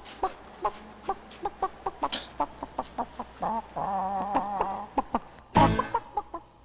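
Chicken clucking: a run of short, separate clucks, with a longer wavering call about four seconds in and a louder one near the end.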